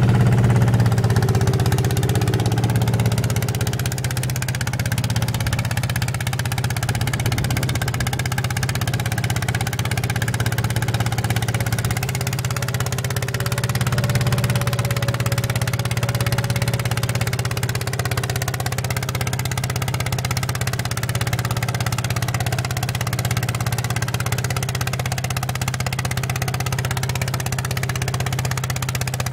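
Ride-on mini tractor's engine running steadily under load as it pulls a plough through a field.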